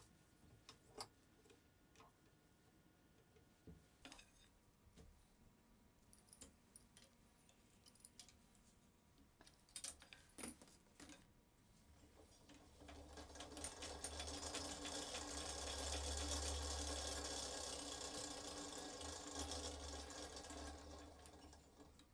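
Restored 1800s Barnes No. 2 foot-powered scroll saw: a few scattered clicks and knocks, then the treadle mechanism is set running with a fast, steady clatter that builds up, holds for several seconds and eases off near the end.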